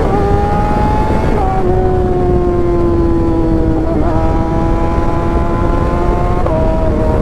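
Kawasaki ZX-6R's inline-four engine running at high revs on the move. The pitch holds steady and eases slowly down, stepping down briefly about a second and a half in and again near the end, over a steady rush of wind and road noise.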